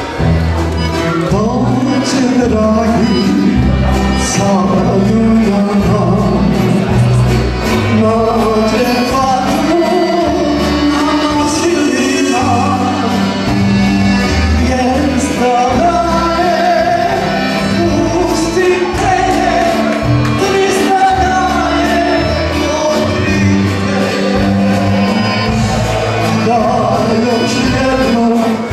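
Live sevdalinka band playing, with accordions, acoustic guitars and drums, and a man singing the melody into a microphone.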